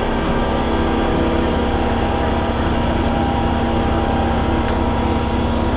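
MPM76 metro train standing at the platform, its onboard equipment humming steadily with a constant low tone and a few higher steady tones.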